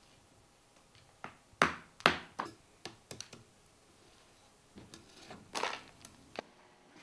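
Hand hammer breaking lumps of raw Bizen clay on a concrete block: a run of sharp knocks, the two loudest about one and a half and two seconds in, followed by lighter taps and a short gritty scraping rustle near the end.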